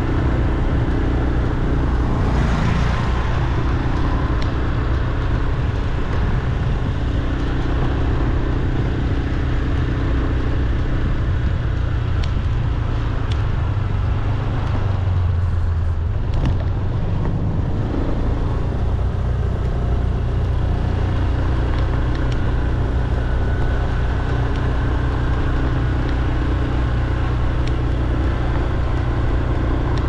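Steady road traffic noise: motor vehicles running, with engine hum and tyre noise, and one vehicle passing more loudly about two seconds in.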